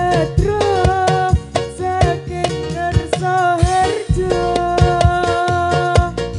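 Hadroh ensemble music: hand drums beat a quick, steady rhythm under a held melody line.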